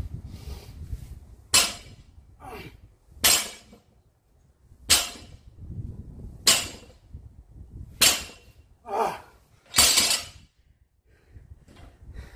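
Weight plates on a loaded barbell knocking on the concrete floor six times, about once every one and a half seconds, as each deadlift rep touches down. Each knock has a short metallic clink.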